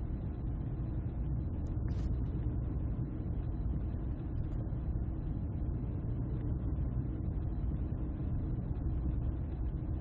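Steady low rumble of a coach bus's engine heard from inside the passenger cabin, with a faint click about two seconds in.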